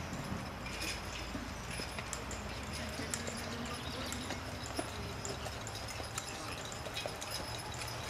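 A horse's hooves clip-clopping on a dirt track as it pulls a small cart toward the listener, the hoofbeats sounding as scattered small clicks over the outdoor background.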